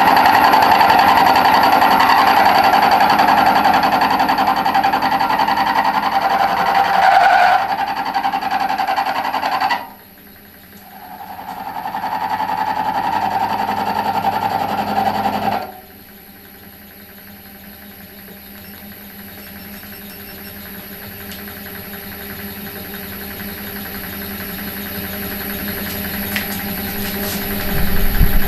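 Milling machine taking a heavy side cut in metal with a 3/4-inch end mill: a loud, steady cutting noise with a strong ringing tone. It is hard work for the small mill, which vibrates under the climb cut. The cutting noise stops abruptly about ten seconds in, runs again for a few seconds, then gives way to a much quieter machine running.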